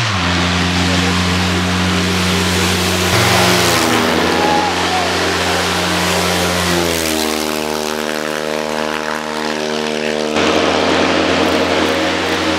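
Fiat 126p race cars' two-cylinder engines running hard at high revs as they climb past. The engine note holds steady, then drops and climbs again a few times.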